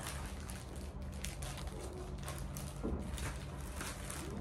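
Plastic packaging crinkling and rustling in quick, irregular crackles as small packets are handled and shuffled about in a cardboard box.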